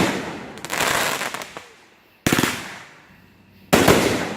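Fireworks going off: three loud bangs spaced roughly a second and a half apart, each fading over about a second, with a spell of crackling after the first.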